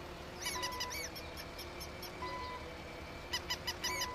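Short, high-pitched squeaks in quick runs, one run about half a second in and a denser run in the last second, with a few short steady beeps between them.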